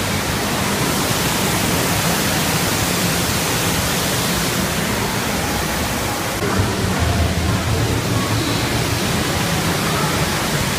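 Steady, loud rushing noise at an even level, spread from low to very high pitch, starting and stopping abruptly.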